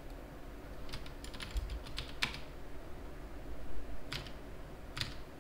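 Computer keyboard keystrokes and clicks: a quick run of key presses about a second in, a sharper single stroke a little after two seconds, then two more clicks near four and five seconds.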